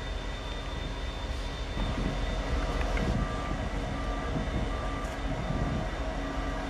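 Diesel locomotives running with a steady low engine drone as they move slowly through the yard. A short tone repeats about every three-quarters of a second from about three seconds in.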